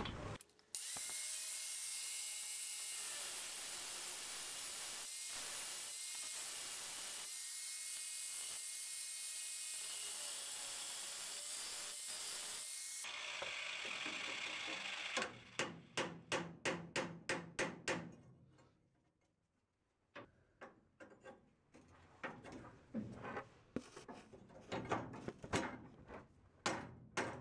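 A power cutoff tool cuts steadily through the steel shift rod under a 1964 VW bus for about twelve seconds, then stops. A hammer then knocks on the rod, about three blows a second for a few seconds, with more scattered knocks near the end.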